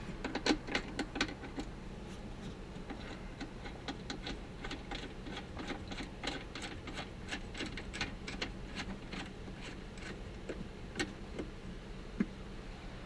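Socket ratchet clicking in quick runs as the seat belt's large bottom anchor bolt is driven in, the clicks thinning out near the end.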